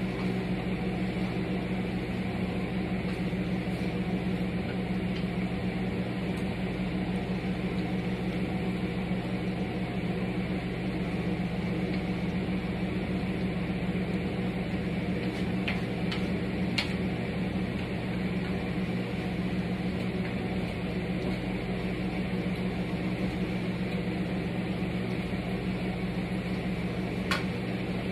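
Steady low mechanical hum with faint overtones, broken by a few sharp light clicks about halfway through and near the end.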